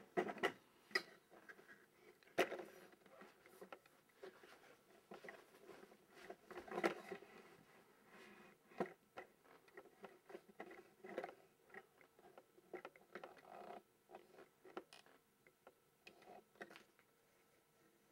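Faint handling noise of a handheld camera being carried and repositioned: irregular knocks, clicks and rustles. The loudest bumps come near the start and a few seconds in, and they thin out and stop shortly before the end as the camera settles.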